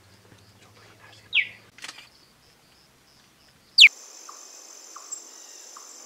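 Two loud, short chirps, each falling in pitch, about two and a half seconds apart. Right after the second, a steady high insect drone sets in, like crickets or cicadas, with a few faint chirps under it.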